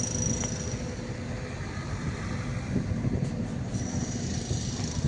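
Street traffic running steadily, a low rumble of passing vehicles, with a thin high-pitched whine at the start and again near the end.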